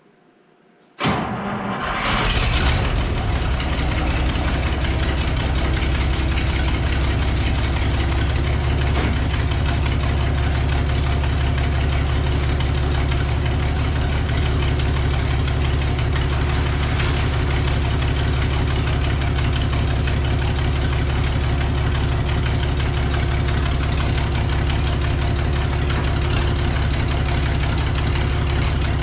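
Kubota tractor engine starting up suddenly about a second in, then settling into steady, even running.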